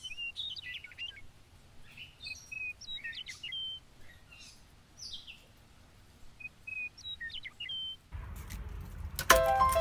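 Birds chirping in short, quick calls and trills. About eight seconds in, a low background rumble comes up, and music starts just before the end.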